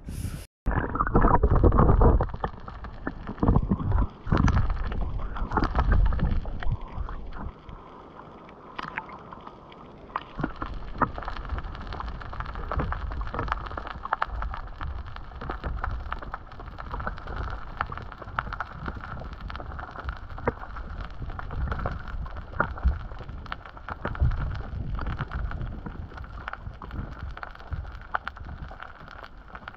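Muffled water noise picked up by a submerged camera: loud sloshing and knocks in the first few seconds, then a steady, dull rush of water.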